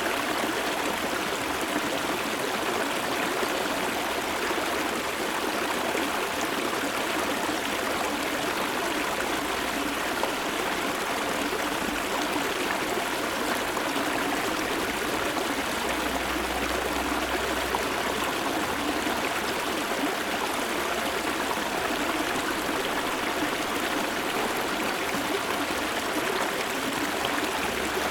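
Shallow river water flowing steadily close up, a continuous trickling rush, the stream low from the dry season. A faint low rumble comes and goes underneath twice.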